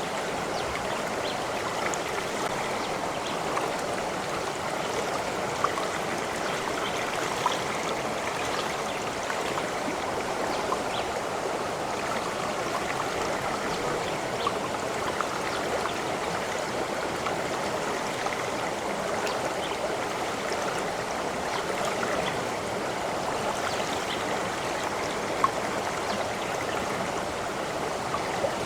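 A stream of water running steadily over stones, an even rushing with small gurgles and plinks scattered through it.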